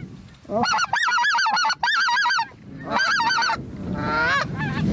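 Canada goose honking: three quick runs of short honks, several a second, then a couple of longer rising calls near the end.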